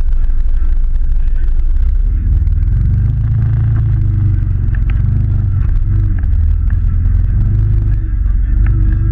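Can-Am Maverick side-by-side's engine running as it drives off-road, with a heavy low rumble; about two seconds in the engine note comes up and then rises and falls repeatedly with the throttle. Heard close up from a camera mounted on the vehicle's hood.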